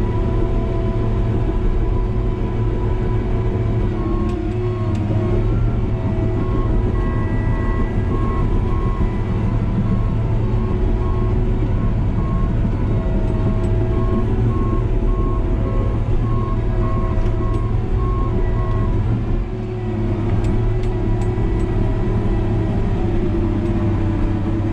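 Diesel engine of a New Holland D180C crawler dozer running under load, heard from inside the cab. From about four seconds in to about nineteen seconds a reversing alarm beeps steadily over it.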